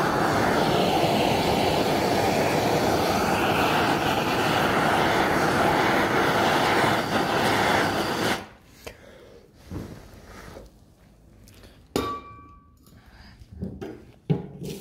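Blowtorch flame burning steadily as it heats paint and filler off a steel car door panel, cut off abruptly about eight seconds in. After that come quieter scrapes and knocks, and one sharp metallic clink with a brief ring.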